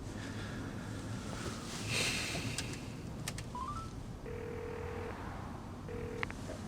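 Mobile phone call being placed: a few taps and a short rising electronic chime, then the ringback tone, a steady beep followed by a second one cut short as the call is answered.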